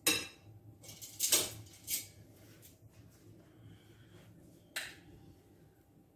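Short clinks and knocks of kitchen utensils on crockery: a serving spoon knocking against a ceramic bowl and plate while rice is served, loudest a little over a second in, then one sharp clink near the end as metal tongs go into the camp oven.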